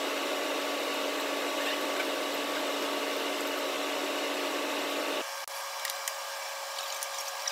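Steady machine hum with a fixed pitch in a workshop, switching abruptly about five seconds in to a quieter, higher hum with a few light metallic clicks from hand tools on the engine.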